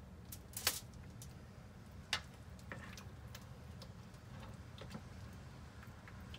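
A few scattered clicks and taps, the loudest about half a second in, as cooked pork ribs are lifted out of a slow cooker and set down on a foil-lined metal baking sheet. A low, steady hum runs underneath.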